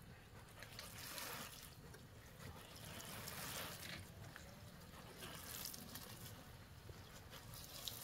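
Water spraying from the rose of a plastic watering can onto lettuce leaves and soil: a faint, steady hiss and patter.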